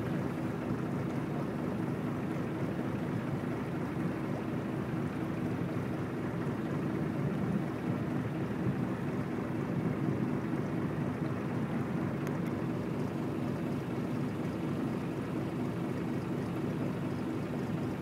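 Steady wind and water noise aboard a reed boat under sail, with a faint steady hum underneath.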